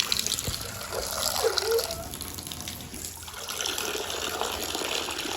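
Water running steadily from a garden hose as enclosure water bowls are filled.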